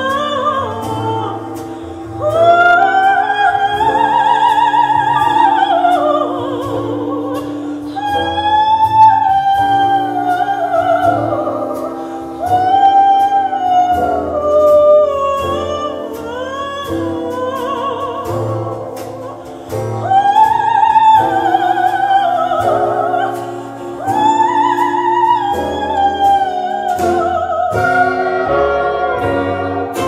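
Operatic singing with strong vibrato on long held notes, in phrases of a few seconds over instrumental accompaniment, played back through floor-standing hi-fi loudspeakers in a room.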